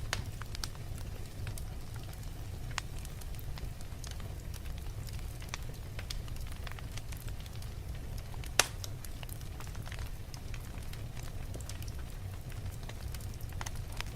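Wood fire crackling in a fireplace: a steady low rumble of burning with scattered sharp crackles, and one loud pop a little past halfway.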